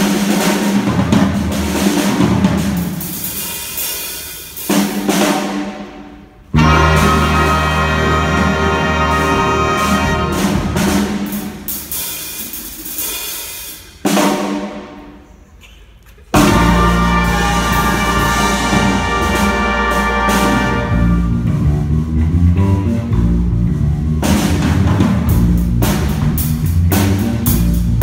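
Jazz band playing a funk tune on drum kit, electric guitar and horns. Twice the band hits a chord that is left to fade, and the full band comes back in, about six and a half and sixteen seconds in.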